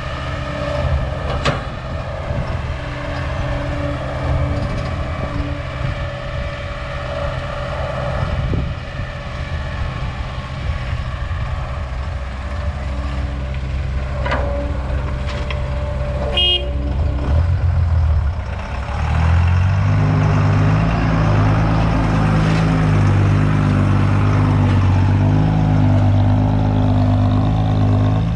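Heavy diesel engines of an old Caterpillar excavator and a dump truck running under load, with a few sharp metal knocks. About 19 seconds in, the engine note steps up and grows louder, then holds steady.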